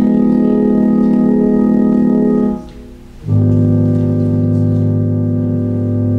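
Organ playing two long held chords, with a short break about two and a half seconds in; the second chord has a deep bass note under it.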